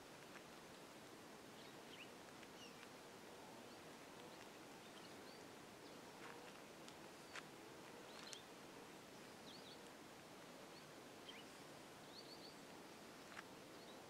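Near silence: faint outdoor ambience with scattered short, faint bird chirps and a few soft clicks.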